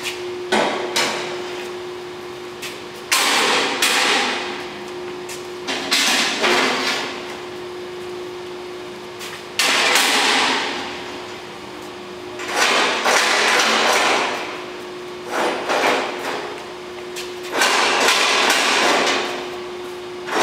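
Arc welding on a sheet-steel box: about seven short weld runs, each a sudden burst of arc noise lasting one to two seconds, over a steady hum.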